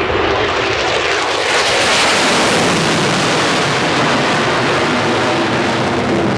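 F-35 fighter jet's afterburning turbofan giving a loud, continuous roar, growing brighter and hissier about a second and a half in and holding strong.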